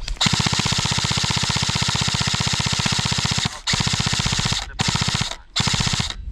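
Airsoft light machine gun firing full-auto: one long burst of about three seconds, then three shorter bursts in quick succession.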